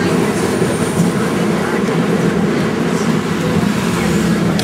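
City Circle tram running along its rails, heard from inside the car: a steady, even running noise of wheels and motors.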